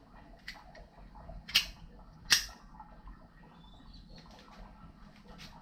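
Sharp clicks and knocks of PVC pipe and fittings being handled and test-fitted, with two louder knocks close together around two seconds in.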